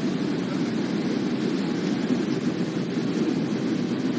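Airliner in flight heard from inside the cabin: a steady, even rumble of engine and airflow noise.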